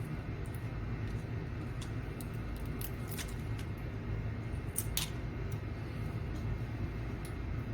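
Scattered small clicks and ticks of integrated-circuit chips and parts being handled and fitted into the circuit board, over a steady low hum.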